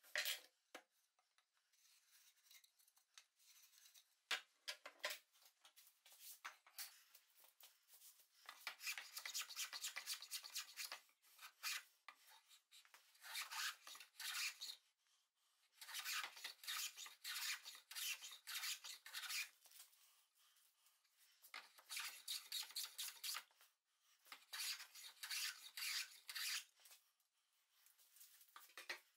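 A hand tool works a pine board held in a bench vise, in rapid scratchy strokes. The strokes come in several runs of two to three seconds with short pauses between them.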